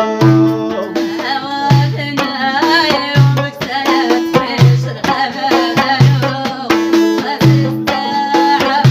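A folk song playing: plucked string instruments and a melodic line over a steady, repeating low drum beat.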